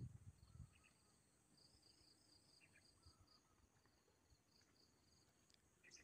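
Faint insect chirping in quick even pulses, about four a second, over near silence.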